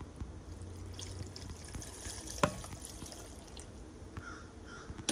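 Lemon and lime juice trickling and dripping from a pitcher into a plastic blender jar of sliced strawberries, with one sharp knock about two and a half seconds in.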